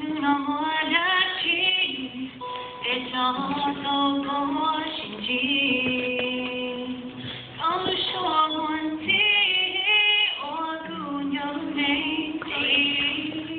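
A woman singing a slow song with long held notes to her own acoustic guitar accompaniment.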